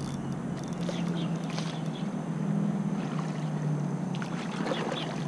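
Steady rush of flowing river water, with a low steady hum underneath and a few faint ticks.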